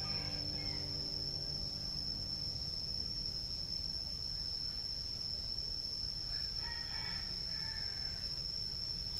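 A rooster crows faintly about six and a half seconds in, one call lasting under two seconds. Under it runs a steady high-pitched insect drone and a low rumble.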